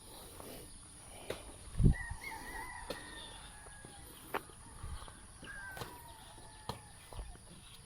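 Roosters crowing in the background: one long crow about two seconds in and another a little past halfway, over scattered clicks and knocks. A dull thump about two seconds in is the loudest sound.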